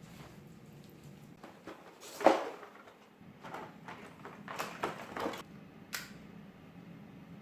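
Indoor handling sounds: a sharp knock about two seconds in, then a run of clicks and rustles, and one last click about six seconds in.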